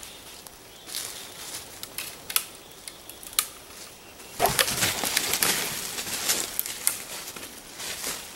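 Thin dead twigs being snapped off a tree by hand: a few sharp single snaps, then from about four seconds in a dense run of snapping and rustling among the branches.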